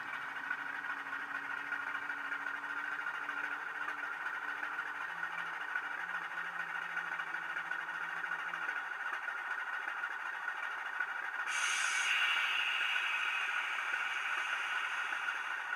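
Diesel engine sound from a LokSound 5 DCC sound decoder in a Heljan model of the North British diesel 10800, played through its small speaker. The loco slows to a stand and idles, and the lower engine notes drop away about nine seconds in. About eleven and a half seconds in a sudden hiss starts and fades slowly.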